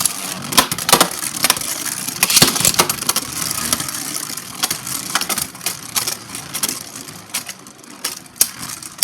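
Two Hasbro Beyblade tops launched into a plastic stadium, spinning with a scraping whir and clashing in rapid sharp clacks. The collisions are densest in the first few seconds and grow sparser as the tops slow.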